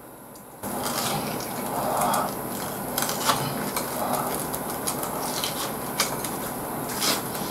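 Close-up chewing of a jumbo breaded fried shrimp (ebi fry): crisp crunching of the batter with many small cracks, starting about half a second in.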